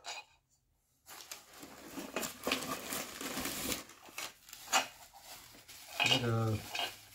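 Plastic bubble wrap crinkling and rustling as it is handled and pulled apart, with a single light knock of dishware a little past halfway.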